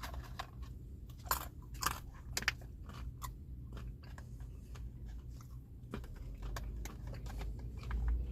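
Close-up chewing and crunching of almonds eaten with turkey and Colby Jack cheese, a run of sharp crunches with a few louder ones in the first few seconds.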